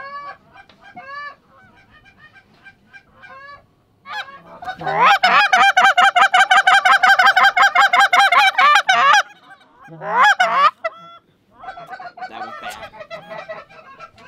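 Canada goose calling on a hand-held goose call, close by: a loud, fast run of clucks and honks lasting about four seconds from around five seconds in, then a single loud honk. Fainter goose honks come before and after it.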